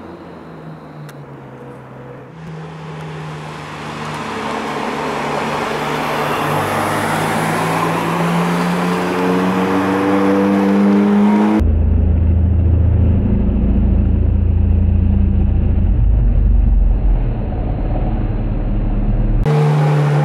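Ferrari 430 Scuderia's V8 engine accelerating hard towards and past, getting louder, its pitch climbing steadily. About halfway through it turns muffled with a heavy low rumble under a steadier engine note. Near the end it comes back clear.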